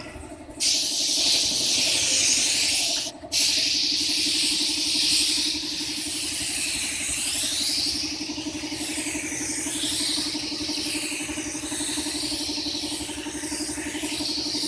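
Gravity-feed paint spray gun hissing as it sprays epoxy primer, starting about half a second in and cutting off briefly near three seconds before running on. A steady low hum sits underneath.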